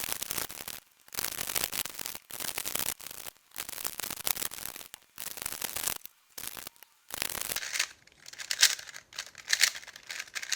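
3x3 speed cube being turned fast in the hands: runs of light plastic clicking and rattling, in bursts with short pauses between them.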